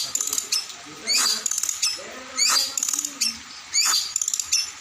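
A songbird singing a repeated phrase about every second and a half: a short, high, squeaky call followed by a fast rattle of clicks.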